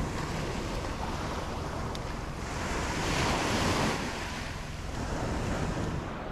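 Ocean surf washing on a beach, with wind buffeting the microphone; a wave swells louder about two to four seconds in.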